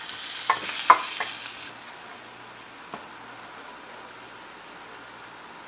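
Wooden spatula stirring spice powders into a frying onion-tomato masala in a stainless steel kadai, knocking against the pan a few times in the first second or so and once more near the middle. A scraping hiss fades after the first couple of seconds, leaving a soft steady sizzle.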